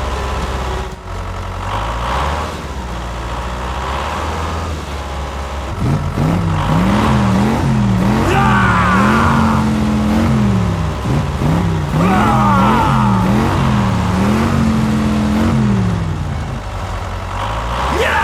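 A small engine running with a steady low hum. From about six seconds in, its pitch rises and falls again and again, as if revved up and down, and settles back near the end.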